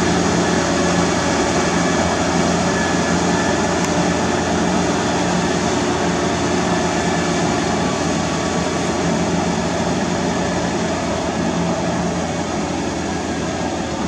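Tractor engine running steadily under load as the tractor drags a levelling board through a flooded paddy on iron cage wheels, fading slightly as it moves away.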